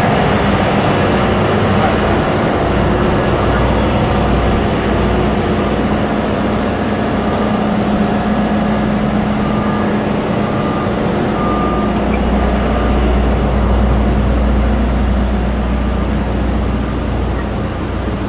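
Loud, steady drone of heavy machinery running, with a constant low hum and rumble that does not change.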